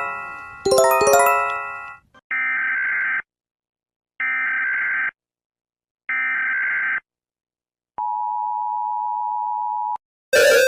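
Emergency Alert System alarm: a ringing chime chord fades out, is struck once more and fades, then come three screeching SAME header data bursts of about a second each, a second apart, and a steady two-tone attention signal for about two seconds.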